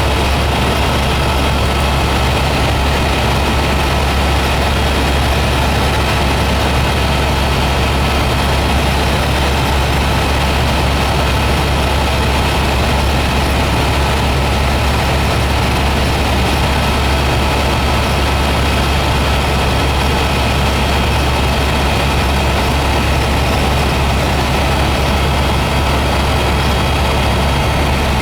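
Helicopter in flight heard from inside the cabin: a loud, steady low drone of engine and rotors, with a few faint steady whining tones above it.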